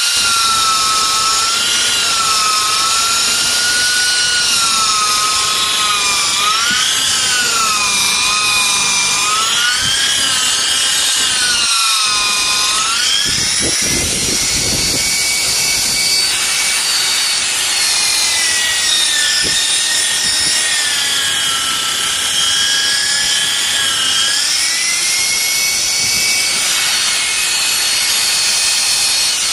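Electric rotary polisher running a sandpaper disc over wet car glass to sand out scratches. Its motor whine rises and falls in pitch throughout.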